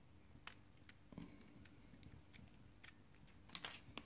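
A few faint, sharp clicks, with a quick cluster near the end: an ejector pin pushed into a Huawei Mate 20 Lite's SIM slot and the SIM card tray popped and slid out.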